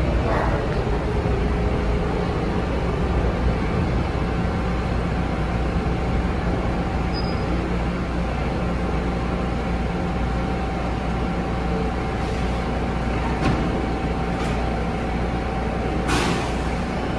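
R143 subway train standing in the station with doors open: a steady low hum of its ventilation and auxiliary equipment, with a faint steady whine. A short hiss of air comes about a second before the end.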